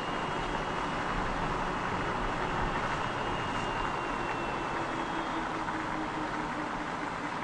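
A car driving at a steady road speed: even tyre and wind noise with a faint steady high whine.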